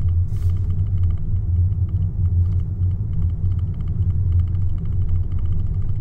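Steady low road and tyre rumble heard inside the cabin of an electric Tesla Model Y driving along a street, with a faint rapid ticking over it.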